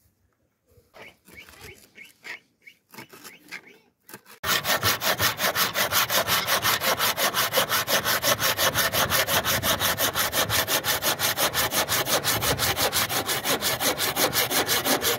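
Curved hand pruning saw cutting through a round wooden pole in fast, even back-and-forth strokes, starting suddenly about four seconds in. Before that, only faint scattered rustles.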